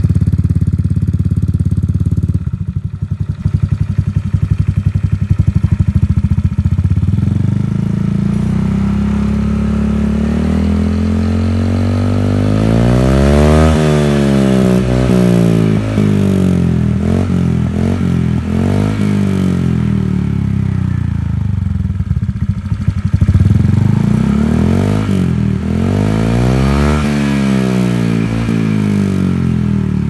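Honda Vario 150 scooter's single-cylinder four-stroke engine running through an aftermarket Balera racing exhaust with a stainless steel silencer packed with glass wool. It idles at first, is revved up and back down about halfway through, gets a few short throttle blips, and is revved once more near the end.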